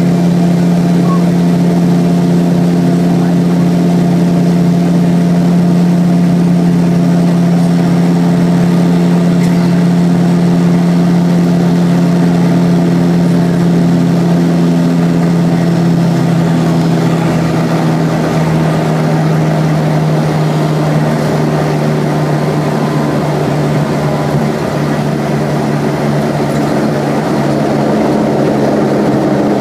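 Jet airliner engines heard from inside the cabin during landing: a steady drone with a strong hum. Roughly halfway through, as the plane rolls along the runway, it turns rougher and noisier.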